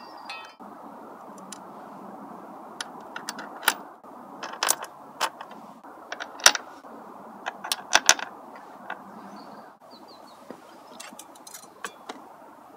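Scattered sharp clicks and small knocks of hands working at plastic wiring connectors and parts in a Honda Grom's under-seat compartment, thickest in the middle, over a steady background noise.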